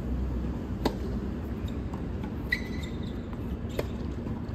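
Two sharp knocks about three seconds apart, with a brief high squeak between them, over a steady low hum.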